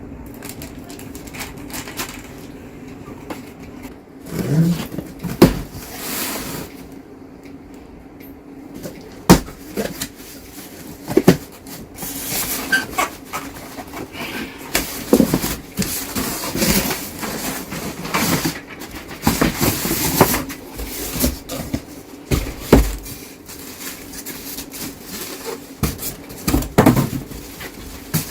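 Irregular clicks, knocks and light rattles of computer parts being handled and fitted together, with several sharper knocks, over a steady low hum.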